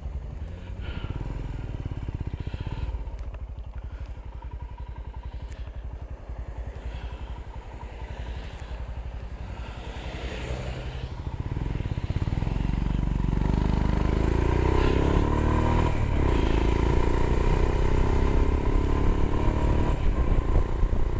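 Royal Enfield Himalayan motorcycle engine ticking over, then getting louder about twelve seconds in as the bike pulls away, its note rising as it accelerates.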